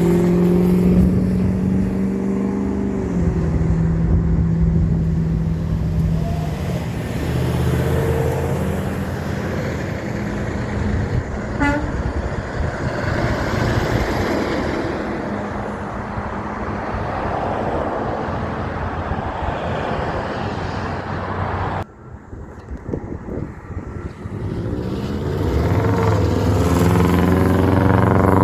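Big trucks driving past at close range. A strong pitched tone at the start drops in pitch as the first truck goes by, followed by a long stretch of engine and tyre noise. The sound breaks off about 22 seconds in, and another truck comes up loudly near the end.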